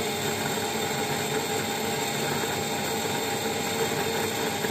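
Aircraft vertical gyro's electric rotor spinning at about 19,000 RPM, a steady machine whir with several held tones. The rotor is still coming up toward its 19,000 to 21,000 RPM operating speed.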